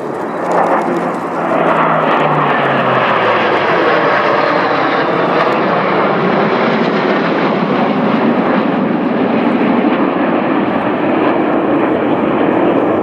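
A formation of military jets flying past with a loud, steady jet roar. A low tone drops in pitch over the first few seconds as the aircraft pass.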